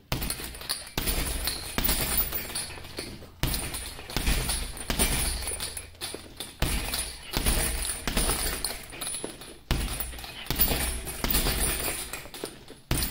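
Boxing gloves striking a heavy punching bag, a jab, hook and body-shot combination thrown again and again. There are four runs of quick blows, each cut off suddenly.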